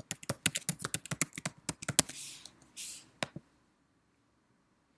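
Typing on a computer keyboard, a quick run of keystrokes for about two seconds as a password is entered. Then come two short hissy noises and a single click.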